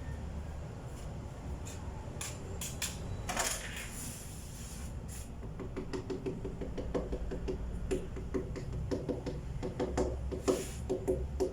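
Hand work on a wooden tabletop: a few light clicks and a short scrape, then from about halfway a quick, steady run of rubbing strokes over the wood surface.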